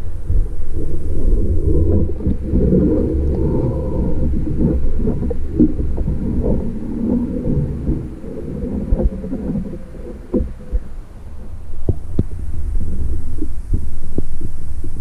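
Flowing stream water heard from underwater as a low, muffled rumble, with scattered irregular clicks and knocks of gravel and small stones in the current.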